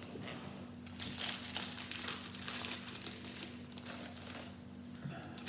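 Small clear plastic parts bag of Lego pieces being crinkled and opened, an irregular crackle that is busiest from about a second in and dies down near the end.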